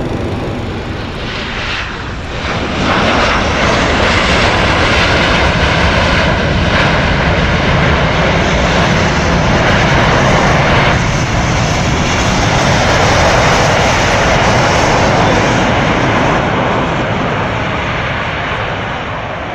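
Boeing 737 jet engines and rushing air, heard loud inside the cabin. The roar builds up about three seconds in, holds steady, then eases off near the end.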